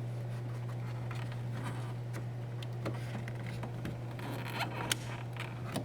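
Small clicks and scraping from the handle's metal latch rod and plastic retaining clip being fitted into the door handle by hand, with one sharper click about five seconds in, over a steady low hum.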